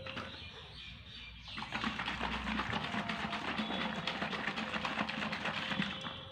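A bottle holding yeast, sugar and lukewarm water being shaken hard and fast to mix the yeast and sugar. The shaking starts about a second and a half in and stops shortly before the end.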